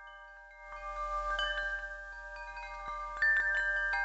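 Chime tones struck one after another, ringing and overlapping, as an intro jingle; the sound gets louder about a second in, and again near the end.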